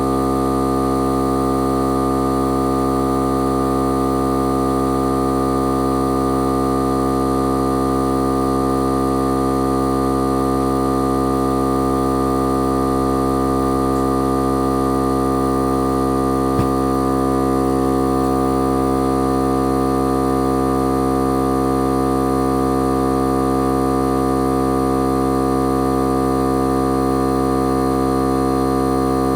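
Milwaukee air compressor running steadily with an even, organ-like drone, inflating a tire on a bead lock wheel to seat the bead. A single sharp click about halfway through.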